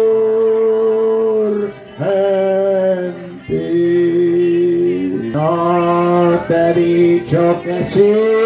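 A man singing a slow Spanish worship chorus into a microphone over a loudspeaker, in long held notes broken into short phrases.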